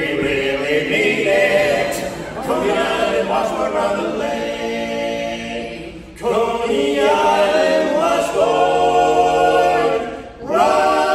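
Barbershop harmony group singing a cappella in close harmony, holding chords, with short breaks about six seconds in and again near the end.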